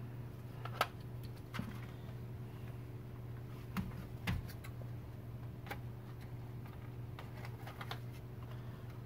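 Scattered small plastic clicks and knocks from a car's plastic trim part being handled and adjusted, over a steady low hum. The sharpest click comes about a second in.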